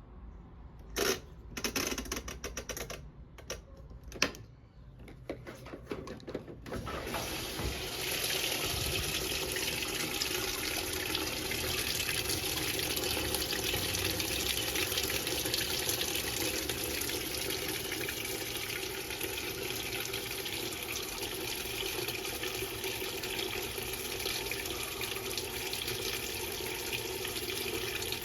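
Electrolux LE06DBD top-load washing machine: a few clicks in the first several seconds, then water rushing steadily into the drum as the machine fills.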